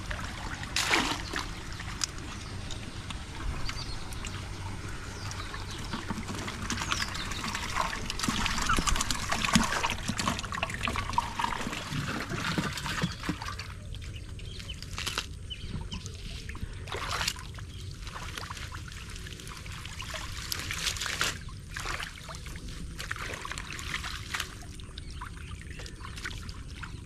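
Shallow muddy water trickling and sloshing as a man wades in it and handles a bamboo fish trap, with a few sudden splashes.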